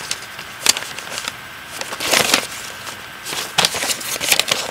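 Paper crinkling and rustling in short spells as a letter is handled and unfolded from its envelope, with a sharp crackle less than a second in and a busier run of rustles near the end.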